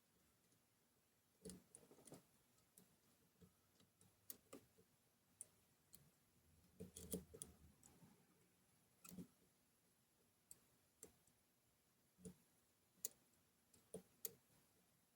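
Faint, irregular small clicks and ticks of a lock pick working the pins of a Kenaurd 5-pin pin-in-pin dimple lock under light tension, with a quick cluster of them about seven seconds in.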